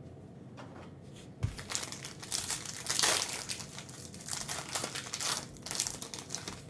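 Foil wrapper of a Panini Prizm basketball card pack crinkling as it is torn open by hand, with a soft thump about a second and a half in. The crinkling is loudest near the middle.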